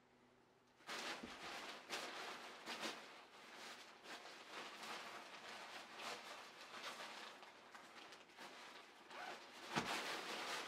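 Crinkling and rustling of an airblown inflatable's thin fabric as it is handled and unfolded, starting about a second in, with a single knock near the end.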